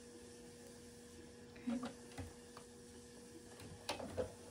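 Faint steady electrical hum, with a few soft clicks and taps of fabric being handled and set under a sewing machine's presser foot, about two seconds in and again near the end.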